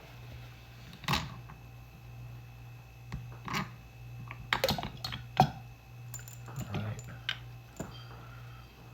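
Small metal carburetor parts clinking and knocking on a workbench while the carburetor is taken apart, in about ten irregular sharp clicks, over a steady low hum.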